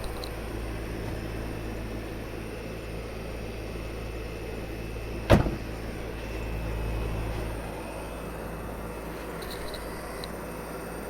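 Poolex Q-Line 5 pool heat pump running, a steady mechanical hum with a low drone and a few fixed tones. A single sharp knock sounds about five seconds in, and a low rumble swells briefly soon after.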